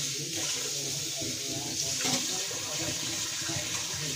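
Water running steadily, like a tap left on, with a faint voice underneath.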